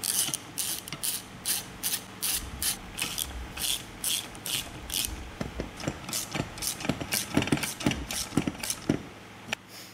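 Hand socket ratchet clicking in quick back-and-forth strokes, about three a second, running bolts back into an outboard motor's lower-unit housing.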